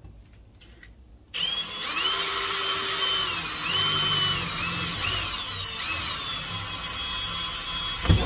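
Cordless drill with a cobalt bit drilling a pilot hole through a stainless steel wall sheet. The motor whine starts about a second and a half in and runs on, its pitch dipping and recovering several times as the bit bites into the metal, then stops with a short knock.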